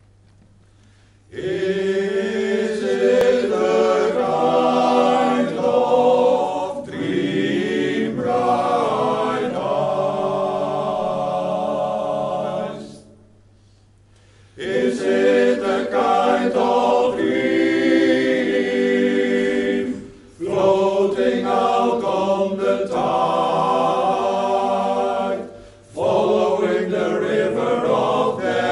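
Male choir singing a cappella in several-part harmony, in sung phrases with breath pauses, one longer pause about halfway through. The singing comes in about a second in, over a faint steady low hum.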